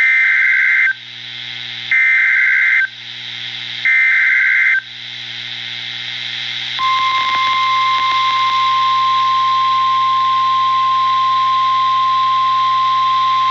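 NOAA Weather Radio Emergency Alert System activation: three shrill digital data bursts of the SAME header, each about a second long and a second apart, then a single steady pure warning-alarm tone from about seven seconds in. The alert signals a newly issued flash flood warning.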